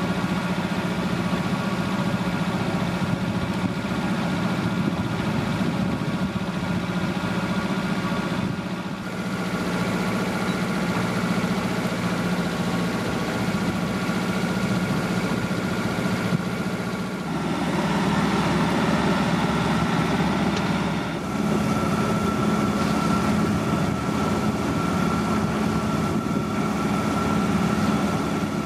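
A sailboat's engine running steadily under way, a low hum with a higher tone over the noise of wind and water. Its tone shifts slightly twice.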